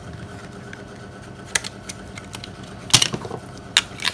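A few sharp clicks and snaps as the battery cover of a Nokia C6 phone is pried off and the battery handled, the loudest about three seconds in, over a steady low hum.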